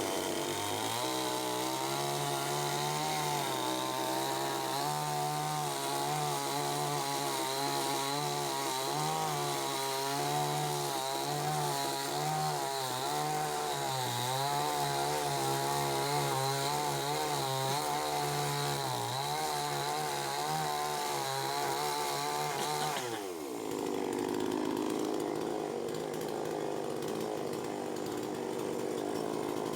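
Chainsaw running at high speed while cutting through a dead tree, its pitch wavering under the load. A little before the end the pitch falls sharply as the throttle is released, and the saw runs on at a lower speed.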